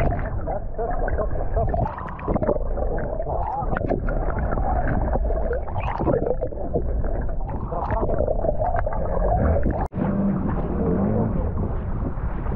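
Muffled underwater rumble and gurgling, as picked up by a camera under the sea, with wavering whine-like tones through it. The sound cuts out for an instant about ten seconds in, and after that the noise changes character.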